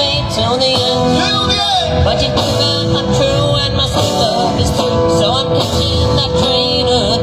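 Live rock band playing a song, with a note held steadily underneath and melodic lines bending up and down above it.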